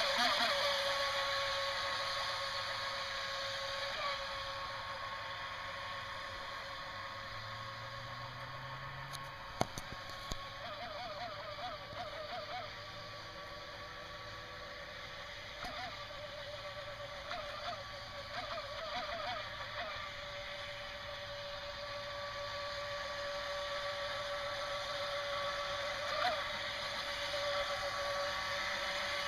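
NQD RC jet boat's electric motor running with a steady whine that wavers in pitch several times midway. It grows fainter as the boat moves off and louder again near the end. The boat runs on rusty motor bearings that have only just been oiled, and the owner says it sounds awful.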